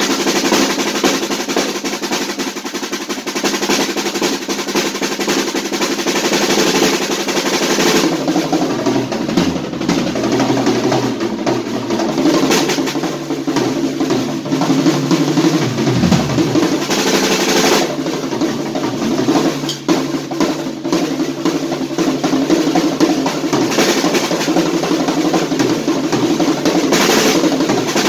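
Acoustic drum kit played loud and fast: dense snare rolls and fills over the toms, with cymbals ringing over them.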